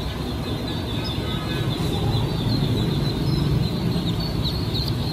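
Dense peeping from a crowd of newly hatched Super meat-duck ducklings, many short high peeps overlapping, over a steady low rumble.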